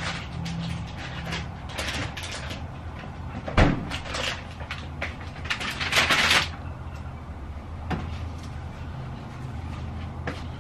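Kitchen counter handling: scattered small clicks and knocks, one sharper knock about three and a half seconds in, and a rustle of plastic packaging around six seconds in, over a low steady hum.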